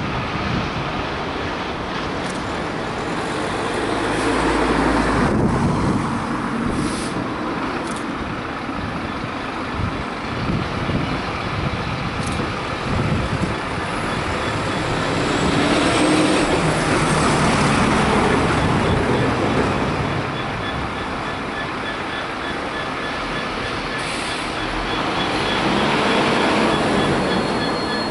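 Class 66 diesel-electric locomotive's two-stroke V12 engine running as the locomotive approaches light engine at low speed. The engine note swells and eases a few times.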